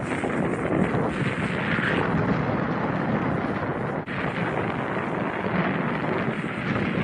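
Steady rush of wind over the microphone while skiing downhill, with a brief dip about four seconds in.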